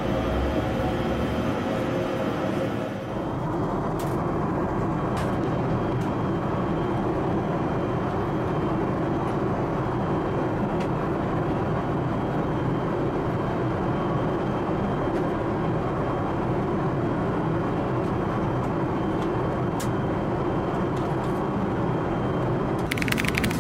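Steady rushing cabin noise of an Airbus A380 airliner in flight, the engines and airflow heard from a window seat beside the engine nacelles.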